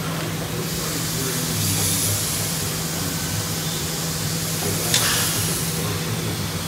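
Trumpf TruLaser 2030 3200-watt CO2 laser cutter running with a steady low hum and two stretches of high hissing as it cuts a metal plate. A single sharp click about five seconds in.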